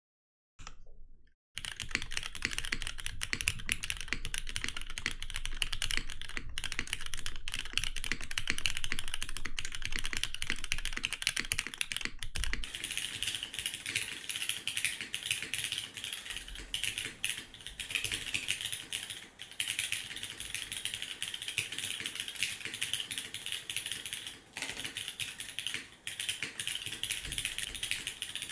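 Continuous typing on a custom mechanical keyboard: a Rukia Works Korsa CE TKL with lubed, filmed Cherry MX2A Black linear switches, an aluminium plate, a gummy O-ring mount and GMK Lime keycaps. The dense key clatter starts about a second and a half in.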